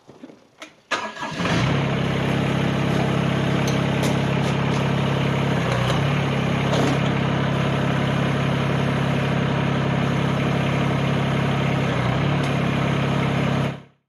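Mahindra eMax 20S compact tractor's three-cylinder diesel engine starting about a second in and settling at once into a steady run. The note wavers briefly twice, and the sound cuts off suddenly near the end.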